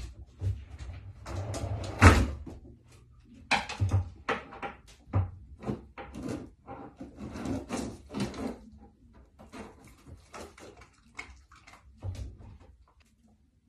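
A husky opening a kitchen drawer with its nose and rummaging through what is inside: irregular rustling, scraping and knocking of the drawer, with the loudest knock about two seconds in. It dies away near the end.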